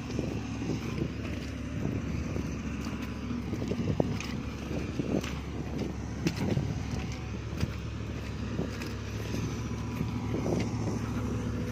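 Vehicle engine running steadily at low speed over a rough, rutted mud track, with scattered knocks and rattles from the bumps.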